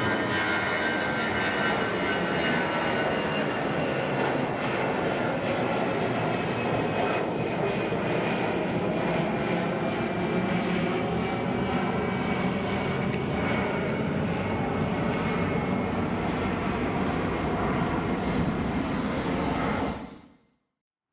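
Alitalia Airbus A320's jet engines running loud and steady as the airliner passes, with whining tones that slowly fall in pitch over the first several seconds. The sound cuts off abruptly near the end.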